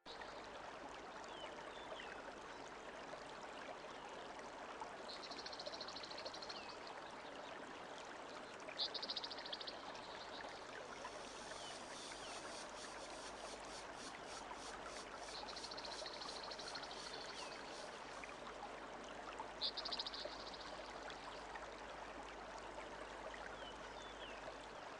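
A stream flowing steadily, water trickling and splashing, with four short high trilling calls a few seconds apart and a few faint chirps.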